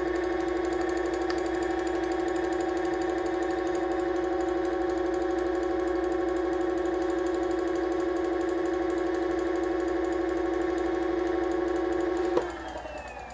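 Onewheel+ hub motor spinning the tire freely at a steady speed, a smooth even hum with no rattle or squeak, which the rider takes as the noise fixed. About 12 seconds in there is a click, and the hum falls in pitch as the wheel starts to coast down.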